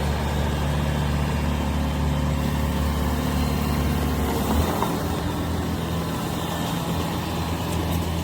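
Engine running steadily with a low, even hum; its tone changes slightly about halfway through.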